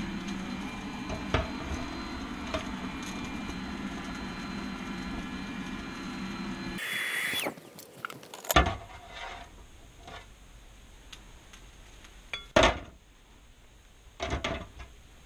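A forge's blower motor runs with a steady hum, then stops about seven seconds in after a short hiss. A few sharp metal clanks and knocks of tools follow.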